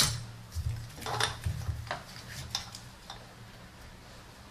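Light metallic clicks and clinks of a socket extension and nut knocking against engine parts as a nut is guided onto its stud by hand. A sharp click at the start, a cluster about a second in and a few single taps after, over a low hum.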